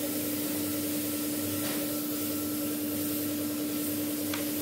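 Steady hum of a running motor-driven machine: a constant droning tone over an even hiss, with two faint clicks.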